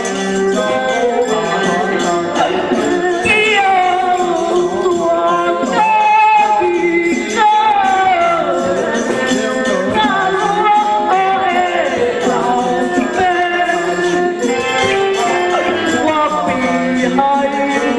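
Taoist ritual music: a wavering, gliding melody over jingling percussion, steady throughout.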